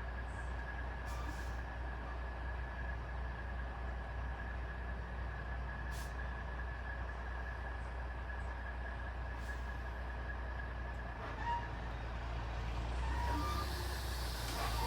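Large truck engine idling steadily with a low rumble and a thin steady whine. A few faint clicks come through, and a hiss rises near the end.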